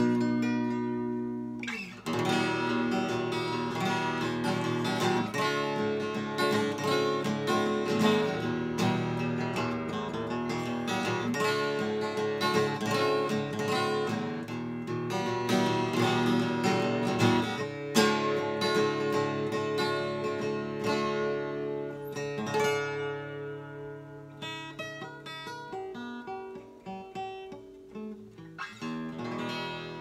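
East German (GDR) archtop acoustic guitar strummed in chords, with a short break about two seconds in. In the last third the playing thins to sparser chords left to ring, getting quieter.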